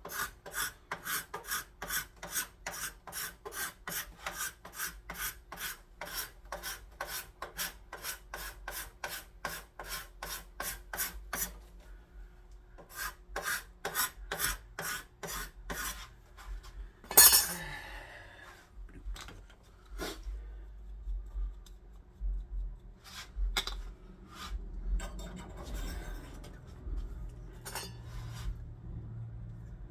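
Hand file scraping in steady, even strokes, about two to three a second, in the hand-fitting of a gun's barrel band. About halfway through the strokes slow and grow sparse, with one loud scrape or knock, then scattered strokes and handling.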